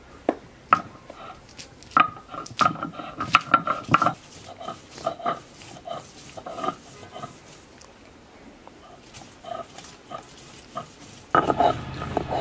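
Garlic cloves being crushed and ground with a stone roller on a shil-pata grinding stone: a series of sharp knocks and scrapes of stone on stone, closer together early on, with a louder, denser stretch of grinding about a second before the end.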